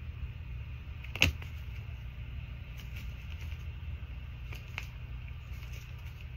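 Tarot cards being shuffled by hand: a sharp tap about a second in, then a few softer card clicks, over a steady low hum.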